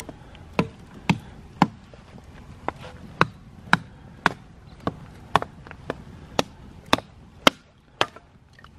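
Steady chopping: sharp knocks of a blade striking a hard surface, about two a second.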